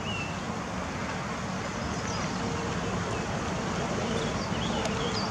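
Steady outdoor background noise with a low rumble, and a few faint, short high chirps now and then.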